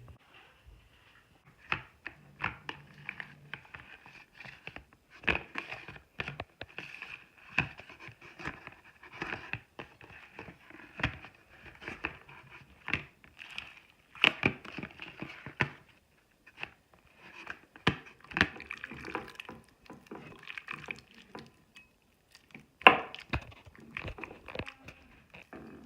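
Bath slime squished and pulled by hand: irregular wet squelches and clicks.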